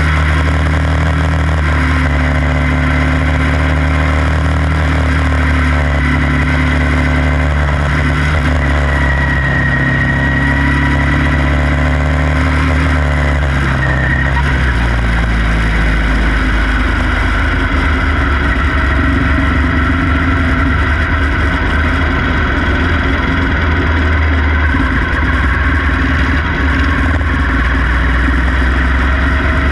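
Quarter midget race car's small single-cylinder engine running at race speed, heard from on board, with other cars' engines close by. Its pitch drops about halfway through and then holds steady at a lower note.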